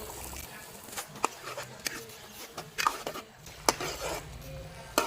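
Irregular clicks and knocks of a cooking utensil against a pot as potato pieces are added to the pan, about half a dozen over a few seconds.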